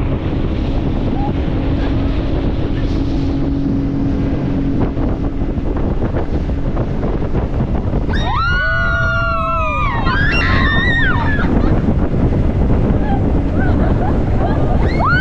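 Wind buffeting the microphone over the steady rumble of a moving houseboat on the water. A high voice calls out about eight seconds in and again just after.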